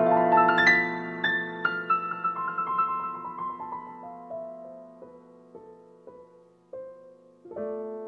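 Background piano music: a held chord, then a slow line of single notes stepping down in pitch and fading, with a new chord struck near the end.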